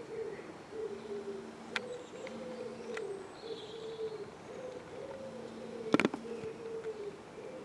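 Pigeons cooing in repeated, wavering low phrases, with one sharp knock about six seconds in.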